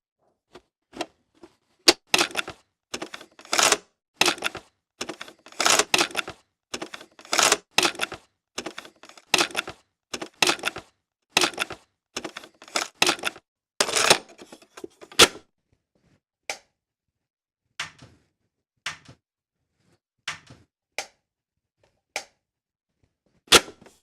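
Cassette tape eject mechanism clicking and clacking, repeated many times in short sharp bursts; from about two-thirds of the way through the clicks come fewer and further apart.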